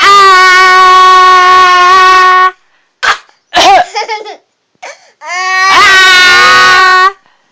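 A voice holding two long, steady high notes, each about two seconds, with a few short yelps between them; the second note rises into its pitch.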